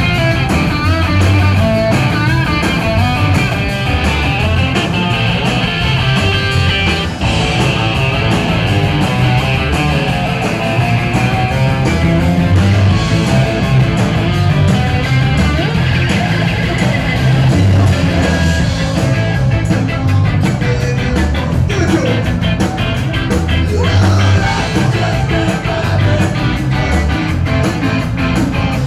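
Live reggae-punk band playing loud and steady through a club PA: electric guitars, bass and drums.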